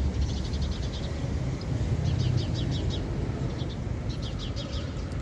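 A small bird chirping in quick runs of short, high notes, about eight a second, in several bursts, over a steady low rumble.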